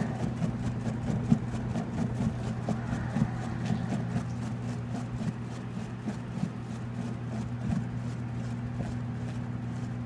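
Danby DWM17WDB portable top-load washer spinning its tub on the spin cycle: a steady low motor hum with scattered light knocks and rattles.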